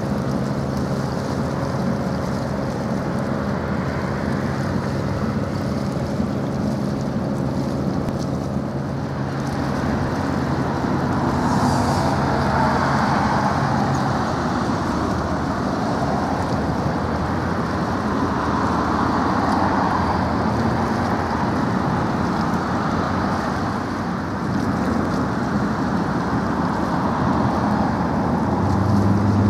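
A passing motor passenger boat: a steady low engine hum that fades out about halfway, under a rushing wash of water and wind that swells in the middle and again near the end.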